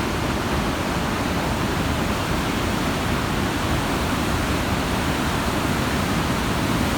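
The Coquihalla River rushing, running high after a flood: a steady, even wash of water noise with no breaks.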